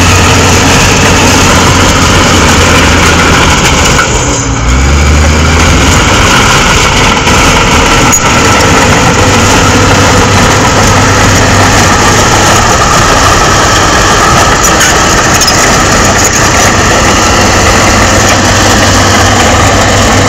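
Shantui SD16E crawler bulldozer's diesel engine running steadily and loud as the dozer pushes soil and rock, with a brief dip in level and a drop in pitch about four and a half seconds in.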